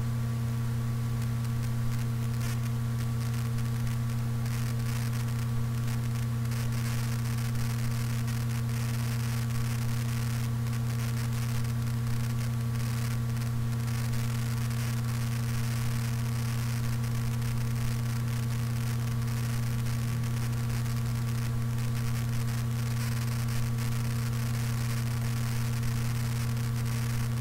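Steady electrical hum from a microphone recorded without noise suppression, with a constant crackle like analogue radio static laid over it.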